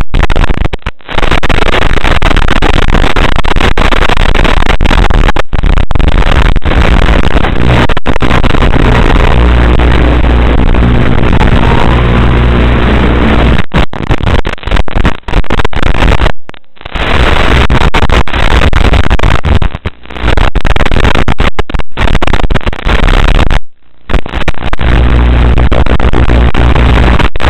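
Loud, harsh buzzing static from an analogue FPV video link's audio channel, with a steady low hum running under it. It cuts out briefly several times, for about a second near the start, twice in the middle, and once more later on.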